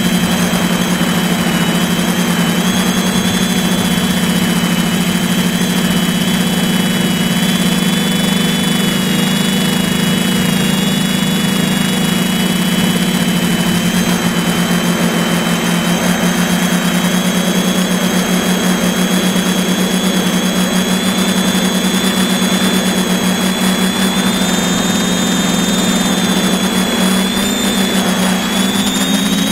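A drone's electric motors and propellers heard from its onboard camera: a steady, loud hum with a thin high whine above it that wavers slightly in pitch.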